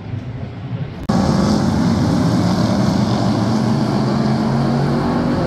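V8 Hotstox stock car engine running hard at speed, a loud steady drone that starts abruptly about a second in, after quieter background noise.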